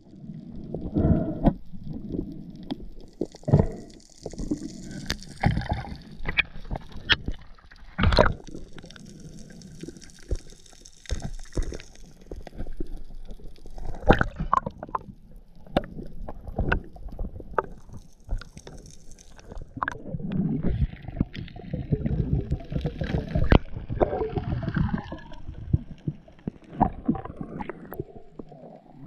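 Underwater sound from a camera carried by a diver: water rushing and gurgling around the housing, with many sharp clicks and knocks as the speared fish are handled on the spear shaft and stringer.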